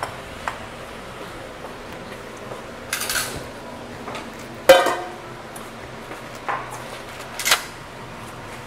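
Dishes and metal kitchenware being handled at a sink during washing up: a few scattered clanks and clinks, the loudest a ringing metal clank about halfway through.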